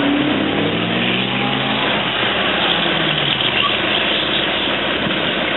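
Engines of a race truck and a pickup truck running on a race track. A steady engine note with several pitches stands out for the first two seconds or so, then gives way to a rougher, even noise.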